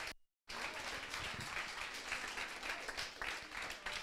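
Audience applauding: many hands clapping in a dense, steady patter, with the sound cutting out completely for a moment shortly after the start.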